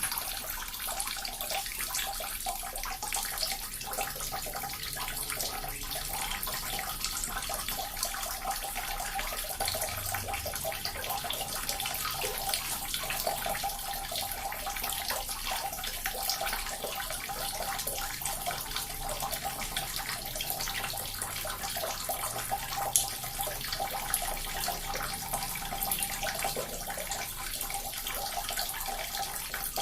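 Small water fountain running: a steady trickle and splash of falling water, with occasional sharper drops.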